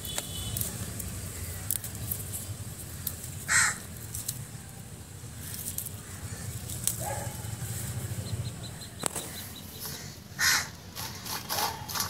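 A crow cawing: single caws about three and a half seconds in and about ten and a half seconds in, then a few quicker caws near the end. Under them are a low steady rumble and light clicks of green chillies being picked off the plants by hand.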